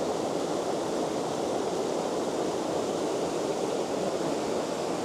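Steady rush of water cascading down a rocky woodland burn.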